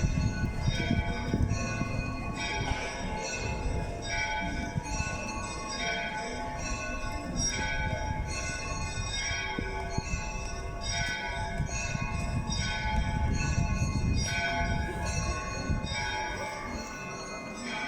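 Church bells ringing: several bells of different pitches struck over and over in a repeating pattern, each stroke ringing on, over a low background rumble.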